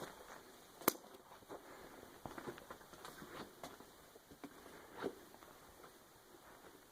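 Footsteps walking, heard as irregular taps and clicks, with one sharp crack about a second in.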